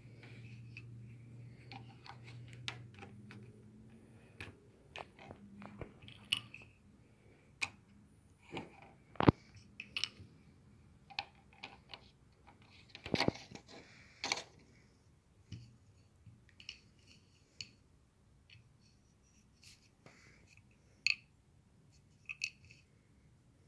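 LEGO bricks clicking and tapping as pieces are pressed together and picked up, in scattered irregular clicks. A few louder knocks come about nine, thirteen and fourteen seconds in.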